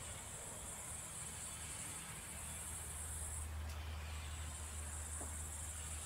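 Faint steady high-pitched hiss over a low hum; the hiss drops out briefly about three and a half seconds in.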